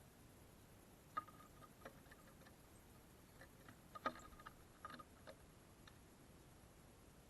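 Faint, irregular sharp ticks of small birds pecking and hopping at a bird feeder while taking seed, about seven in a few seconds, the loudest about four seconds in.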